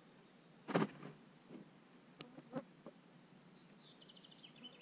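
A sharp knock about a second in, then a few lighter clicks and taps. Near the end a small bird trills in a quick, falling series of high notes, over a faint insect buzz.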